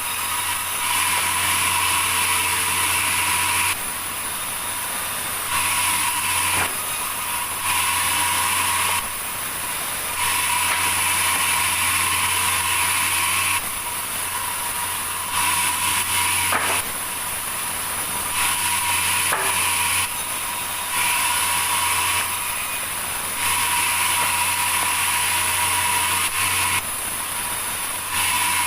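Sawmill saw machinery running with a steady hum and hiss, stepping between louder and quieter stretches every few seconds.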